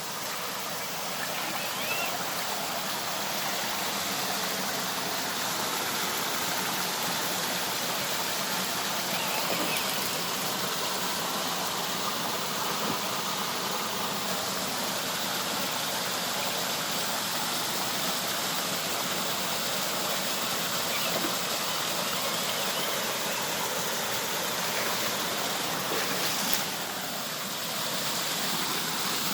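Steady rush of flowing river water, an even noisy wash with no clear change throughout.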